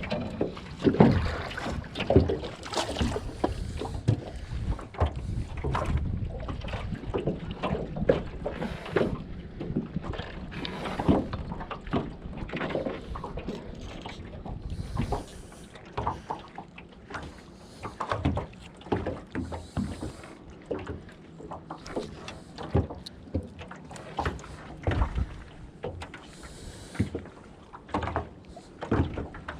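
Small fishing boat on the water: irregular knocks and clatter against the hull over a low rumble of wind on the microphone.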